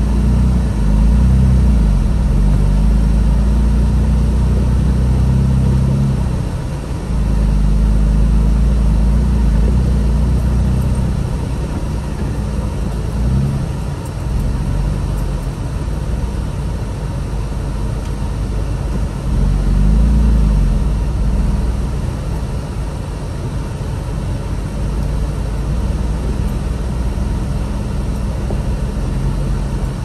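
Jeep Wrangler engine and exhaust running under way at low speed, a steady low drone that eases off briefly a few times and swells again about two-thirds of the way through.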